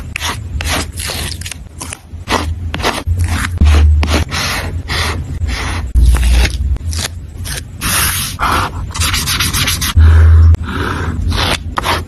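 Close-up paper-crafting sounds: washi tape and a sticker sheet rubbing, scraping and peeling against paper in a string of short strokes, with a few dull thumps.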